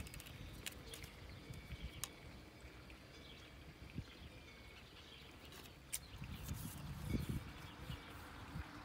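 Quiet outdoor ambience with faint bird chirps, broken by a few sharp light clicks and taps as a metal rule and a thin wooden batten are handled against the oak carving, and a soft low thump about seven seconds in. No chainsaw is running.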